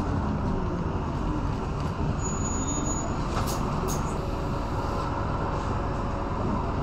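Inside a Scania K230UB single-decker bus on the move: its Scania DC9 diesel engine running steadily through the ZF Ecomat automatic gearbox, under a constant rumble of road and tyre noise. A couple of brief light rattles come about halfway through.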